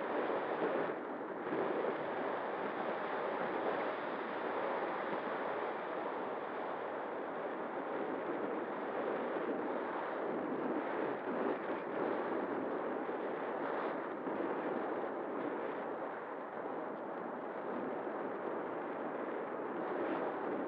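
Wind rushing over the onboard camera's microphone of an RC glider in flight: a steady rough rush of air with a faint steady tone under it.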